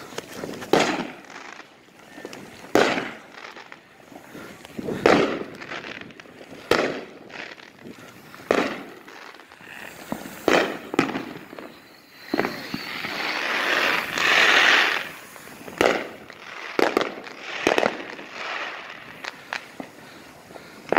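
Consumer fireworks and firecrackers going off around a neighborhood: a dozen or so separate sharp bangs at uneven intervals, some with a short echo, plus a rushing hiss that swells and fades over about three seconds past the middle.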